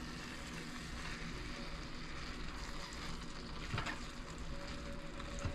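Cooked rice and vegetables frying in a pan with a steady low sizzle while being stirred, with a couple of louder strokes of the stirring utensil near the end.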